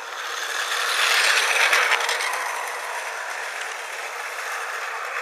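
Battery-powered Tomy Plarail HST toy train running on plastic track, its small geared motor and wheels clattering. It grows louder as it passes close, peaking a second or two in, then settles back to a steady running sound.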